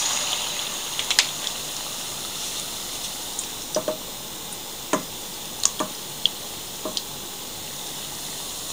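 Tempura-battered salmon strips deep-frying in hot canola oil: a steady sizzle, a little louder right at the start, with scattered sharp pops and clicks.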